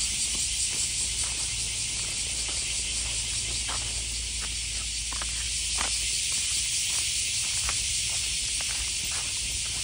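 A steady, loud high hiss of outdoor ambience, with scattered light ticks and scuffs of footsteps on a gritty dirt path.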